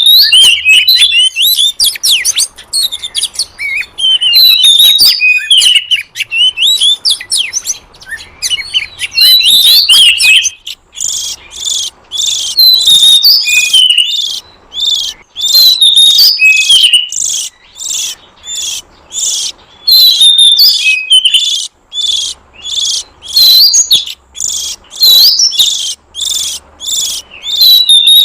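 Oriental magpie-robin (kacer) song: a loud, varied run of clear whistles, slurred notes and trills. From about eleven seconds in, a fast, even chattering pulse runs under the whistles.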